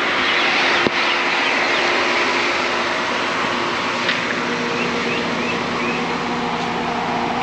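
Steady mechanical running noise with a low hum, and a few short high chirps around the middle.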